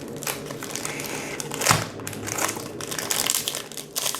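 Foil trading-card booster pack wrappers crinkling and crumpling as they are handled and torn open, with a louder crackle about 1.7 s in.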